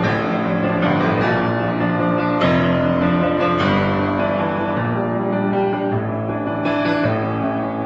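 Solo piano intro of a song: full chords over a low bass line, a new chord struck every second or so, with no singing yet.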